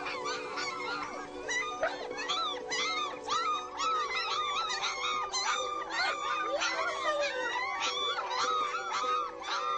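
Several dogs yelping and howling over one another, several short rising-and-falling cries a second, over background music with held notes.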